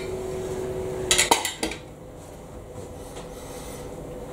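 Cutlery clinking against a plate as food is picked up to eat: a quick cluster of about four sharp clinks a second in.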